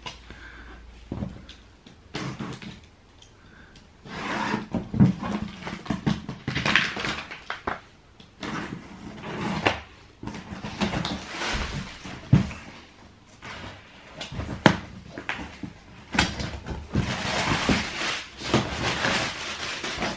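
Cardboard shoeboxes and their packing being handled: irregular rustling and scraping with several sharp knocks.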